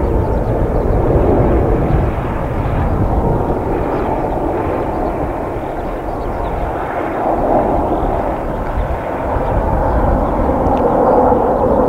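Six Kawasaki T-4 twin-turbofan jets flying past in formation: a steady rushing jet noise that swells a little near the end, with a low rumble of wind on the microphone.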